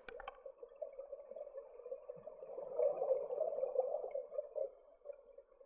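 Muffled underwater sound heard through a camera's waterproof housing: a scuba diver's exhaled bubbles gurgling. The bubbling grows louder for about two seconds in the middle. A couple of sharp clicks come right at the start.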